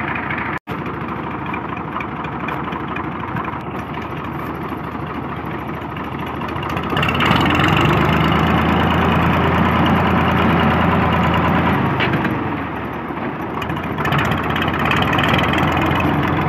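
Farm tractor's diesel engine running with its silencer removed, an open, unmuffled exhaust, as the tractor drives along. The engine gets louder about seven seconds in, eases back around twelve seconds, then picks up again; the sound is quite different from the silenced engine.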